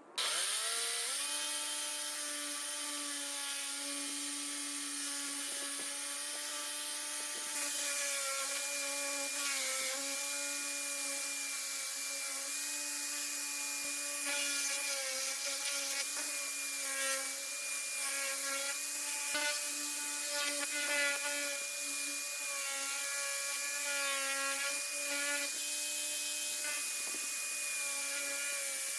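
Electric drill powering a homemade wood lathe starts, spins up within a second and runs with a steady whine. From about eight seconds in, a tool rubs against the spinning wood, and the motor's pitch dips briefly each time it bears down.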